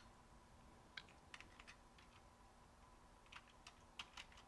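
Faint keystrokes on a computer keyboard: a few irregular clicks about a second in, then another short run of clicks near the end.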